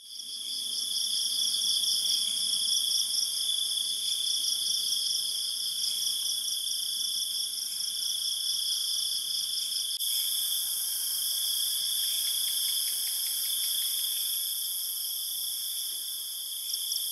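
Chorus of night insects: several steady high-pitched trills sound at once, one of them pulsing rapidly.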